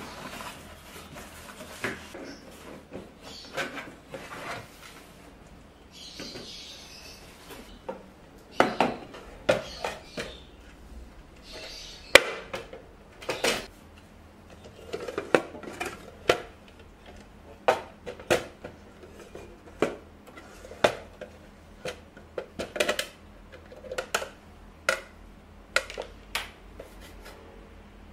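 Cardboard box being opened and unpacked with soft rustling, then a clear plastic bread box being handled: its hinged lid and slatted plastic rack click and clack against each other and the counter in a long run of sharp knocks, about one or two a second.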